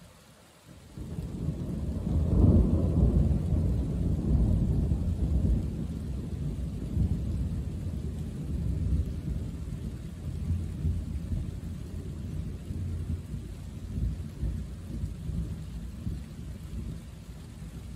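Thunder: a deep rumble breaks in suddenly about a second in, is loudest a second or two later, then rolls on and slowly fades.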